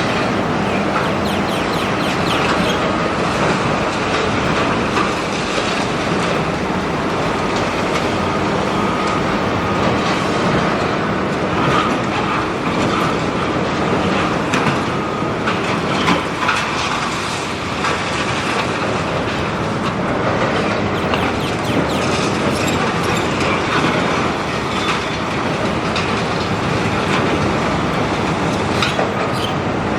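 Doosan excavator at demolition work: its diesel engine running under a steady, dense clatter and crunch of breaking concrete and falling debris, with many small sharp knocks throughout.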